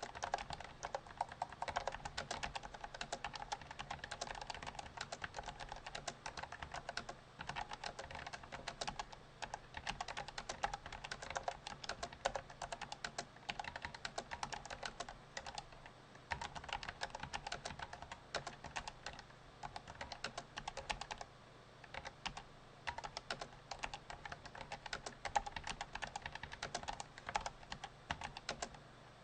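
Continuous fast typing on a Perixx Periboard-535 low-profile keyboard with Kailh Choc v1 Red linear switches: a rapid stream of light key clicks, about 60 words a minute, with brief pauses between bursts.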